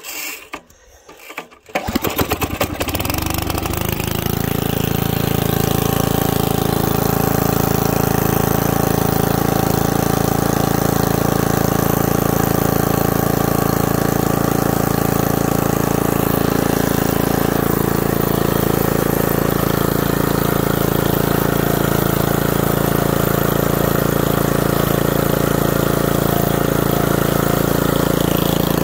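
A 1979 Mountfield M1 Monarch rotavator's 5 hp Briggs & Stratton single-cylinder engine is pull-started on its recoil starter, catches about two seconds in, picks up speed and settles into steady running. This is the engine's first start after more than 20 years in storage, on the pull after a choked first attempt.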